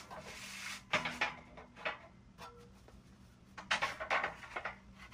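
Long aluminum angle pieces being laid down and shifted on a steel square-tubing frame: metallic clanks and scrapes, a couple of knocks early on and a quick cluster of them near the end.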